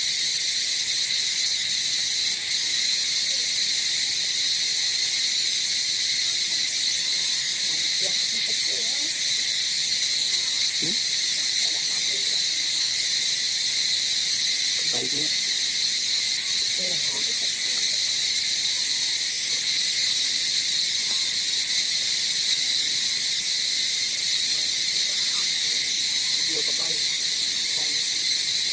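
Steady, high-pitched chorus of forest insects, droning without a break.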